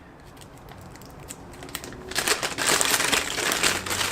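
Plastic parts bag crinkling as it is handled, starting about two seconds in.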